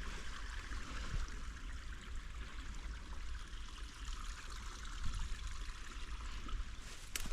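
Steady trickle of running water from a small stream, with one sharp click near the end.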